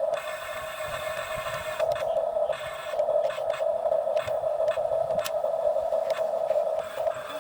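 Excavator at work: a steady droning hum with scattered sharp clicks and clanks.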